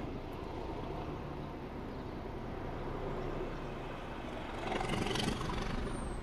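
Diesel locomotive passing at a distance: a steady low engine drone that swells louder as it goes by about five seconds in.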